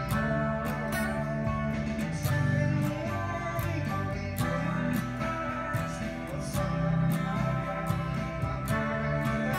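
Electric guitar played along to a band recording, with strummed guitars over a steady drum beat.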